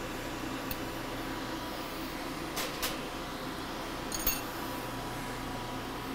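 Glass clinking: a few light taps, then one sharp, ringing glass clink about four seconds in, over a steady rush from the lit lampworking torch and shop ventilation.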